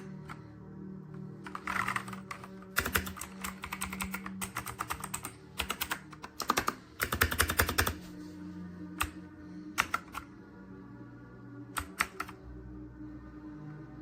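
Dierya T68SE 60% mechanical keyboard with clicky blue switches being typed on: fast runs of keystrokes for several seconds, then a few single presses near the end.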